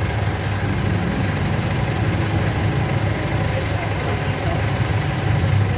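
A diesel engine idling steadily under the steady rush of diesel fuel running from a pump nozzle into a vehicle's tank.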